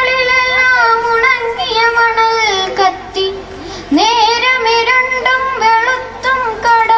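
A young girl singing a Malayalam poem in the melodic, sung recitation style, in long, held, wavering notes with a short breath about three and a half seconds in.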